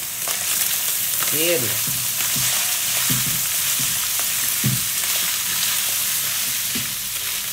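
Meat sizzling steadily as it fries in oil in a pan, with a few scrapes and knocks of a spoon stirring it.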